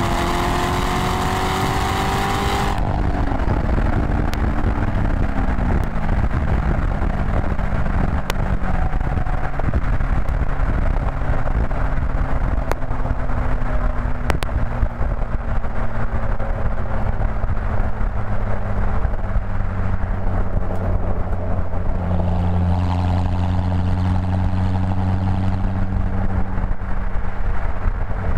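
Corvette V8 with its stock NPP exhaust, revs climbing under acceleration, then lifting off about three seconds in with the revs falling away. It then cruises at steady low revs, with more throttle and a louder drone for a few seconds near the end, and a few sharp clicks along the way.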